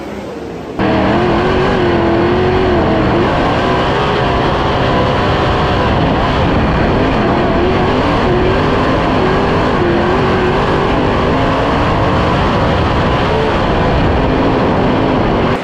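410 sprint car's V8 engine heard onboard at racing speed, its pitch rising and falling as the throttle is worked through the turns. It cuts in loudly less than a second in.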